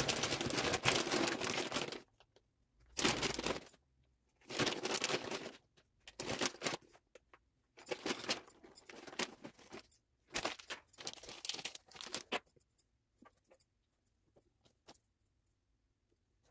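Plastic food packaging crinkling and rustling in six separate bursts of about a second each, as grated mozzarella and smoked salmon are handled out of their packs onto the pastry; only a few light clicks in the last few seconds.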